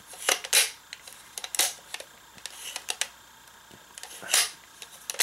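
Hard plastic clicks and clacks from a Hopper Zecter toy, a handful of sharp, irregularly spaced ones, as its stiff hinged lever is pushed and worked by hand.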